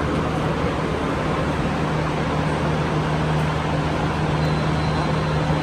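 Steady low mechanical hum over a constant traffic-like rumble: the ambient din of the aerial tram station.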